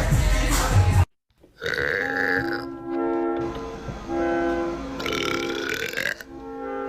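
Loud burping that cuts off abruptly about a second in; after a short silence, background music of steady held notes that step in pitch, with more burping over it.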